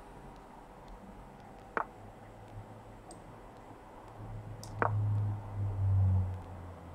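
Two sharp clicks about three seconds apart, the chess website's piece-move sounds as moves are played in an online game. A low hum comes up in the second half and is the loudest sound.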